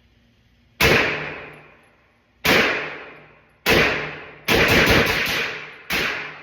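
Masterpiece Arms Defender 9mm pistol firing: three single shots a second or so apart, then a rapid bump-fired burst of about six rounds, then one more shot near the end, each report echoing away.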